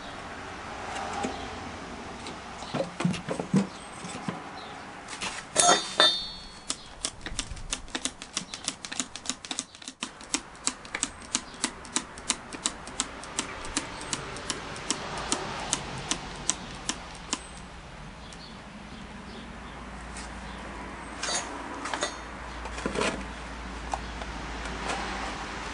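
Plastic trigger spray bottle being pumped to pressure-test a small copper boiler with water: a sharp click each squeeze, about two a second for around ten seconds, with a few more later. Before that, a couple of knocks as the boiler and fittings are handled on the wooden bench.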